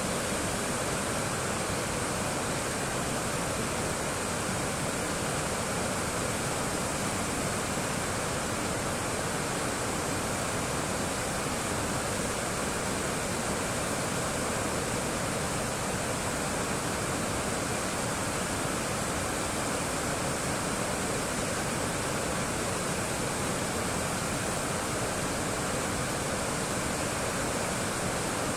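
River water rushing over a low weir in a steady white-water rush, with no break or change.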